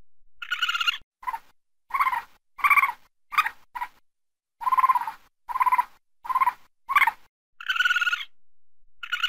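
Raccoon calling: a quick series of about eleven short, high-pitched calls, a few of them longer than the rest.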